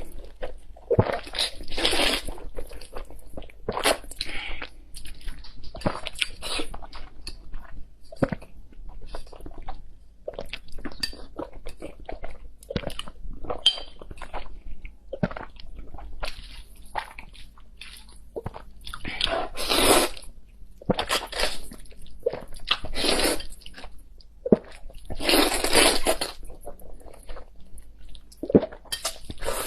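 Close-miked eating of spicy fire chicken instant noodles: wet chewing and smacking, broken several times by louder, drawn-out slurps about a second long.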